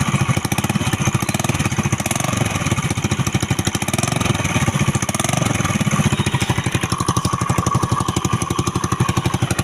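Honda Dio scooter engine running at idle with a loud, rapid, even putter, because its exhaust pipe has cracked right through all the way round before the silencer, so the exhaust blows out unmuffled.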